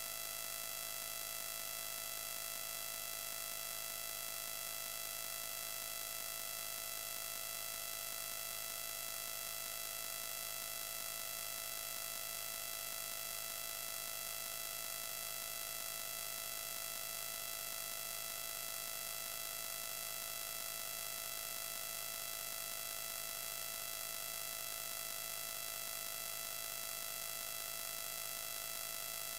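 Steady electronic static: an unchanging hiss with a constant buzzing whine made of several fixed high tones.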